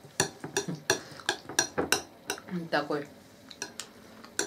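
Metal spoon clinking and scraping against a glass bowl while salad is scooped up: a quick run of sharp clicks, about three a second, then a few more near the end.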